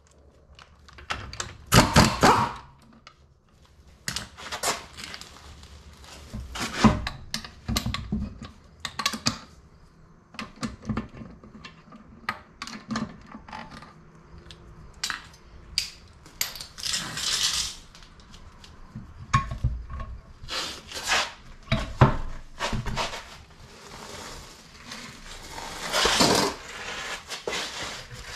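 Metal tool clanks and clinks as the car's wheel bolts are loosened with a bar and socket and spun out by hand, with the socket and bolts clinking against each other and the wheel. A longer, louder clatter comes near the end, as the wheel comes off the hub.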